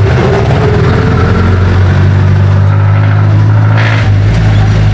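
Jeepney's diesel engine running, heard loudly from inside the passenger cabin as a steady low drone, with a short hiss about four seconds in.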